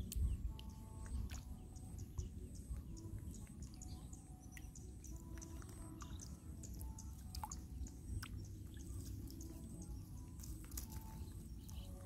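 Faint outdoor sounds: a steady low rumble, scattered small clicks and light splashes as a young monkey wades and picks among shrub twigs in shallow water, and a few faint bird chirps.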